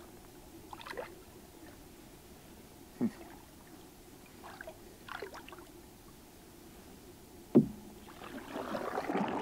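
Canoe paddling: soft paddle splashes and drips, with two sharp knocks against the canoe, the second about seven and a half seconds in and the loudest. A longer swish of water builds near the end.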